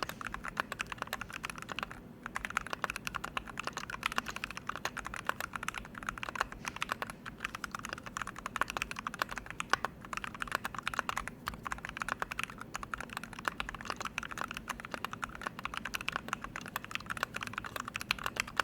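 Fast, continuous typing on a KBD67 MkII mechanical keyboard with lubed Tealios V2 linear switches on a brass plate, capped with high-profile sculpted keycaps. Rapid key presses with a few brief pauses.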